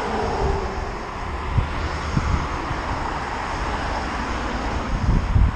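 Wind rushing over the camera microphone while riding a bicycle, mixed with the steady noise of car traffic passing on the road alongside. The wind buffets harder in low thumps near the end.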